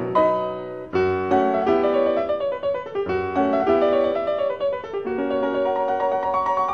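Background piano music, a gentle classical-style piece with notes and chords struck at a steady pace.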